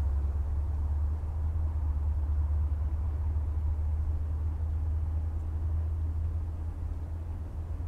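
Steady low rumble with a faint hiss above it; no bird or insect calls stand out.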